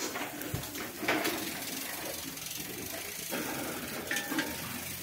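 Pork sizzling over charcoal in a hinged wire grill basket, with several short metallic clicks and rattles as the basket is handled.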